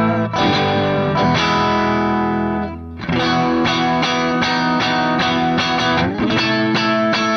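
Electric guitar played through a compressor and overdrive pedals, giving a lightly distorted tone. A chord is struck and left to ring until it fades near three seconds in, then a rhythmic strummed chord riff follows, with a slide up the neck about six seconds in.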